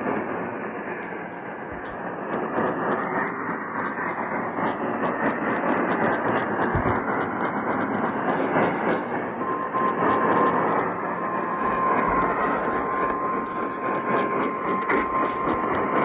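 Static-filled reception of a weak, distant radio signal, a steady hiss with faint crackles. About nine and a half seconds in, a steady single tone comes through the static and holds.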